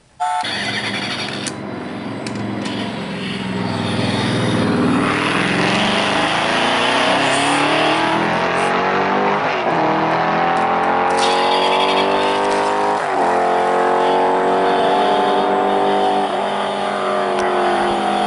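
A toy Porsche Panamera's built-in sound chip plays a race-car engine revving sound effect through its small speaker. The engine note climbs again and again, each run starting over about every three seconds in the second half.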